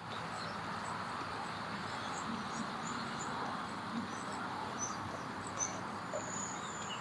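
Birds chirping: many short high calls scattered throughout and a longer high whistled note near the end, over a steady background hiss.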